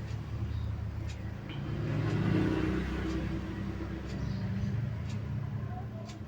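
A motor vehicle's engine running steadily in the background, growing a little louder about two seconds in, with a few light clicks of things being handled.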